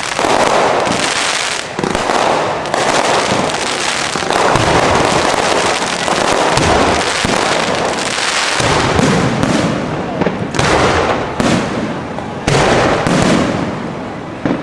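Aerial fireworks display going off in a dense, continuous barrage of bursts and crackling, with sharper, louder reports every few seconds.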